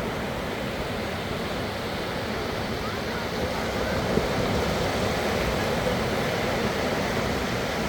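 Sea surf washing onto a beach, a steady rushing noise.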